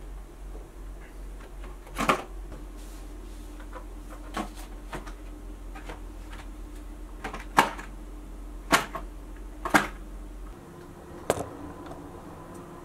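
Handling noise: a handful of sharp clicks and knocks at irregular intervals, over a low steady hum that stops about ten and a half seconds in.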